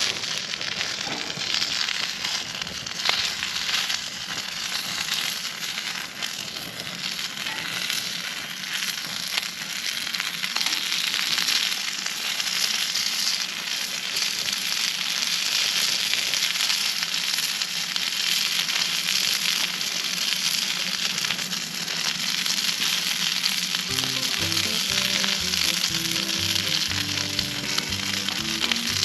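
Food sizzling and crackling steadily in a hot pan, with background music coming in about 24 seconds in.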